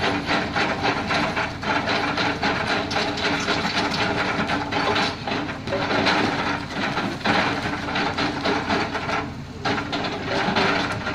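Lonking excavator working rock: its engine running steadily under a continuous clatter of stones as the bucket scrapes and breaks loose rock.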